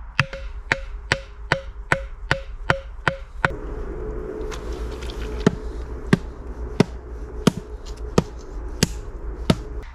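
Small hatchet knocking a sharpened wooden stake into wet, muddy ground in an even rhythm of about two and a half blows a second. About three and a half seconds in, the blows slow to one every two-thirds of a second or so and hit harder.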